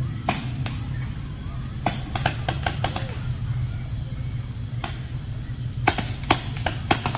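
Paintball markers firing: sharp single pops at irregular intervals, with a quick run of shots about two seconds in and several more near the end.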